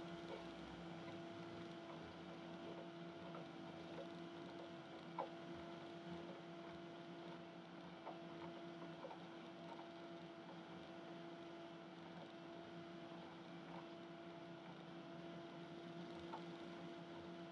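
Faint steady electrical hum over a light hiss, with a few soft clicks.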